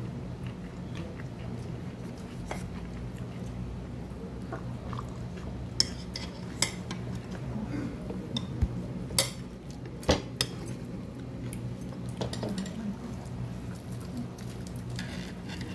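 Stainless-steel chopsticks clicking and scraping against a small ceramic dish of rice, a few sharp clinks scattered mostly through the second half, over a steady low hum.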